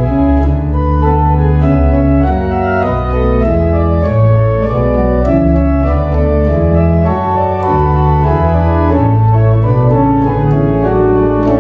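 Church organ playing slow music of held chords over deep bass notes, the chords changing every second or so.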